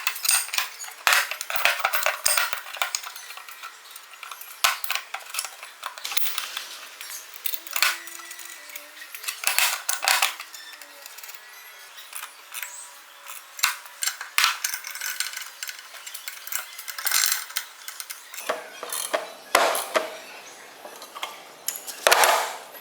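Steel vise parts and hand tools clinking and knocking together on a workbench as metal guide pieces are fitted and bolted with allen bolts: irregular sharp metallic clinks, some ringing briefly.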